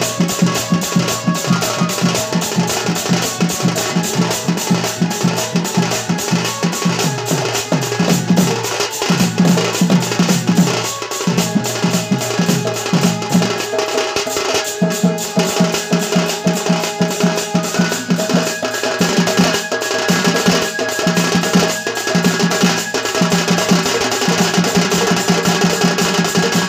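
Dhol, a two-headed barrel drum, played in a fast, driving rhythm for danda dance, with a held melody line sounding over the drumming.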